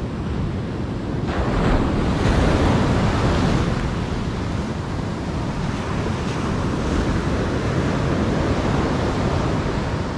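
Ocean surf breaking and washing up the sand, with wind on the microphone. The surf swells louder about a second in, then settles into a steady wash.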